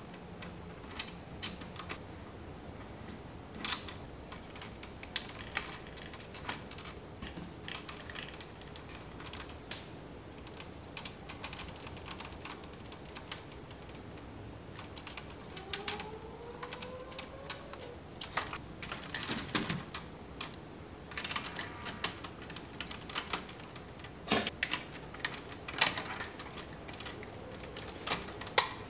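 LEGO Technic plastic parts clicking and snapping together as body panels are pressed on by hand: scattered sharp clicks, coming thicker in the second half. A short rising squeak comes about halfway through.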